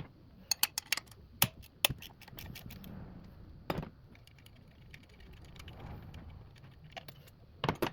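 Sharp metallic clinks and taps of hand tools and bolt hardware being handled while the pitch mount is unbolted. Several come in quick succession in the first two seconds and a close group near the end.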